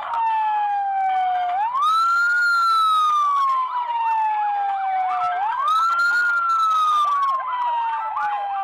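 Toy fire engine's electronic siren wailing: a tinny tone that rises quickly and then falls slowly, repeating about every four seconds, with a faster warbling tone under it.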